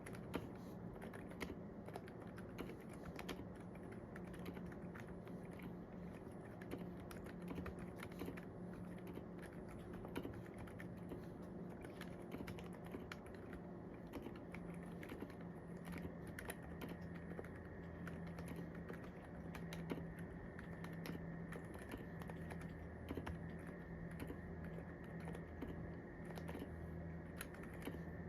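Continuous typing on a KBD75 v3 mechanical keyboard fitted with lubed Silent Alpaca silent linear switches and lubed Durock v2 stabilizers: a dense, unbroken stream of keystrokes with an occasional louder key. A faint steady hum sits underneath.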